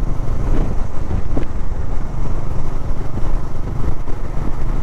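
Bajaj Dominar 400 motorcycle's single-cylinder engine running at a steady riding speed, a low even rumble without revving.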